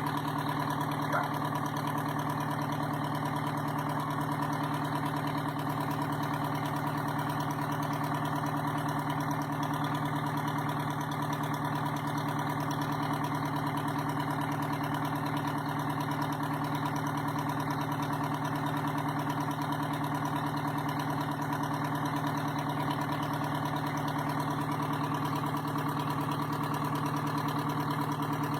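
Detroit Diesel 4-71 four-cylinder two-stroke diesel engine running steadily at an even speed.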